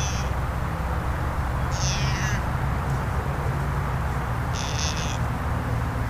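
White-tailed deer giving three short, high-pitched bleats about two and a half seconds apart, the middle one falling in pitch, over a steady low hum.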